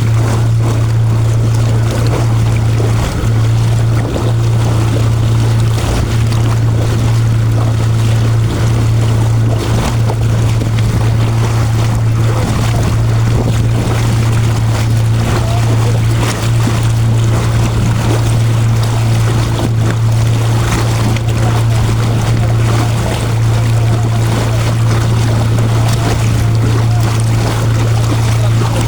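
A small boat's motor running at a steady speed, a constant low hum that does not change pitch, with a noisy wash of water and wind over it.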